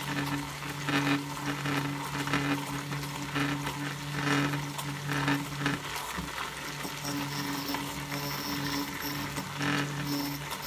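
Hand-held immersion blender motor running with a steady hum, blending an artichoke and cream-cheese sauce, with scraping and splashing noises from the blade in the mix. The motor dips briefly about six seconds in.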